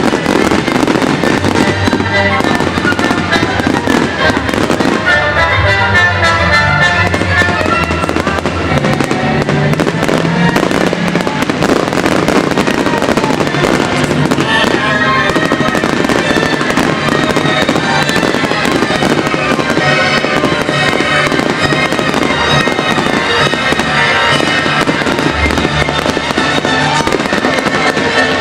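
Fireworks display bursting and crackling without a break, over loud music.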